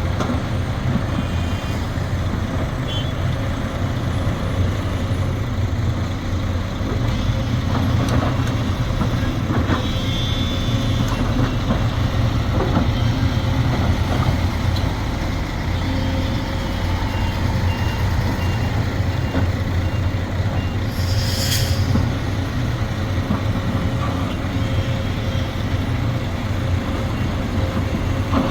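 Sumitomo SH370LHD-6 excavator's diesel engine running steadily under work. Faint short high beeps come and go, with a run of them past the middle. There is a brief hiss about 21 seconds in.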